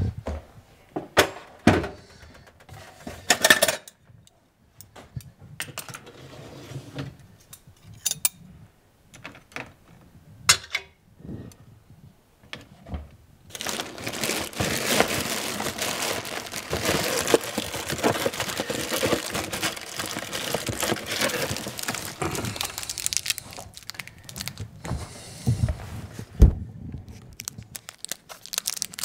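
Dishes and dishwasher racks clinking and knocking in scattered sharp strokes. About thirteen seconds in, plastic bags rustle and crinkle steadily for around nine seconds as a hand digs through a box full of them. Near the end come a couple of dull thumps.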